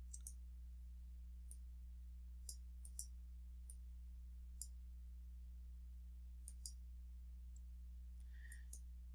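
Faint, irregular computer clicks, about a dozen, some in quick pairs, as rows are selected and a right-click menu is opened, over a steady low hum.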